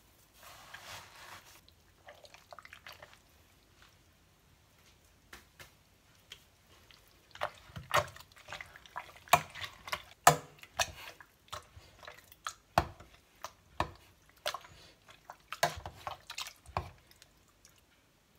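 Metal slotted spatula clinking and scraping against a stainless steel pot while stirring and mashing juicy, sugared medlar fruit, with wet squelching. The clinks come irregularly, mostly in the second half, and stop shortly before the end.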